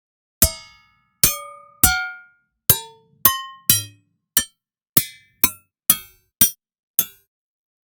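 Sampled struck-metal percussion from a virtual instrument library: twelve separate hits, each ringing at a different pitch and decaying quickly, with short pauses between them.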